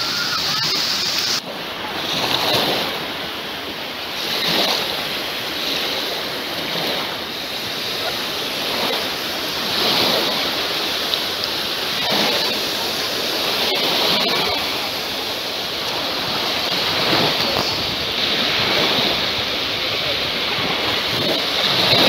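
Small Black Sea waves breaking and washing up a shallow shore, the surf swelling and ebbing every two to three seconds.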